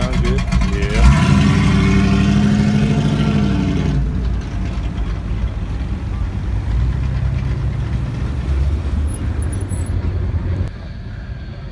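Plymouth Duster muscle car's engine revving as the car pulls away, pitch rising and then dropping off about four seconds in. A Chevrolet Camaro's engine then runs steadily at low speed as it rolls past, cutting off suddenly near the end.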